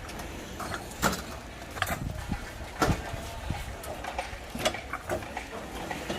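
Irregular sharp knocks and clinks, several seconds apart, over a steady low rumble.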